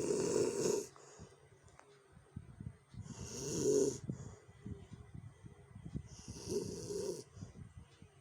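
A sleeping person snoring harshly: three loud snores about three seconds apart, each a rough drawn-in rattle, with quieter crackly breathing between them.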